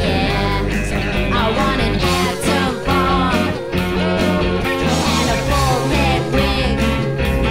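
Rock music playing loud and steady: an instrumental passage with drums, bass and a wavering lead line.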